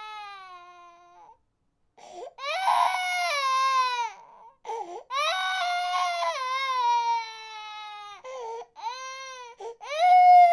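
A baby crying in several long wails, each sliding down in pitch, with short breaks between them. The loudest wail begins near the end.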